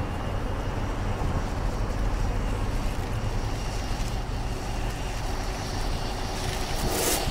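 Steady low rumble of city background noise, like distant traffic, with a brief hiss just before the end.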